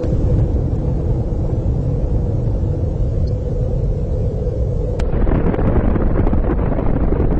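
Deep, continuous rumble of a nuclear explosion that starts suddenly. About five seconds in it gives a sharp click and turns harsher and more crackling.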